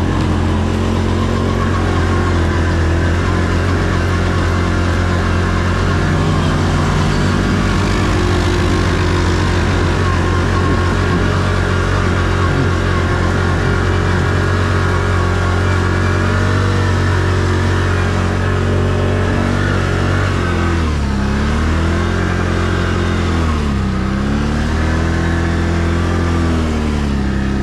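ATV engine running at steady revs, then its revs drop and climb again twice near the end.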